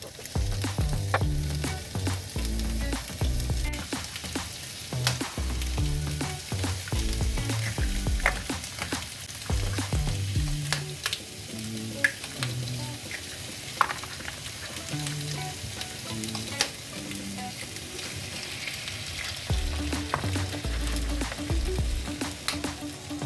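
Food frying and sizzling in oil in a pan while it is stirred, with scattered sharp clicks of a utensil against the pan.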